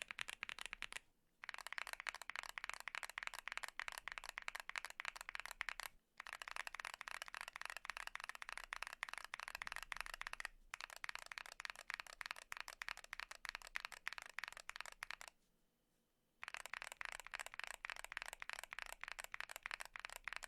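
Fast typing on custom mechanical keyboards fitted with Zuoce Studio Rococo tactile switches, which have polycarbonate housings: rapid runs of key clacks, first on a QK65 and then on a Bakeneko60 after a short pause about a second in. The typing breaks off briefly three more times.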